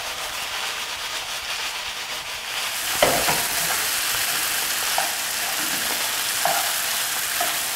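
Quinoa spaghetti with cubed eggplant and summer squash sizzling in a hot sauté pan while being tossed with tongs. The sizzle grows louder a few seconds in, with a sharp knock about three seconds in and a few light clinks later.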